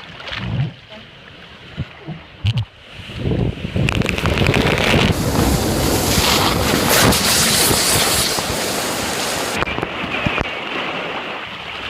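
Rider going down a 12-story water speed slide. After a few knocks, a rush of wind and sliding water builds about three seconds in, stays loud for several seconds, and its high hiss drops off sharply near the end.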